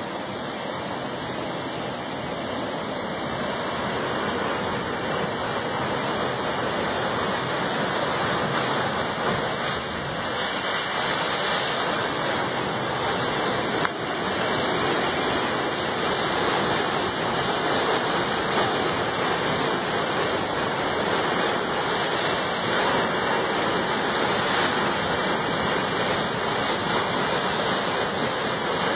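Ocean surf breaking on a rocky granite shore and surging into a narrow rock chasm: a steady rush of water and spray that grows louder over the first few seconds.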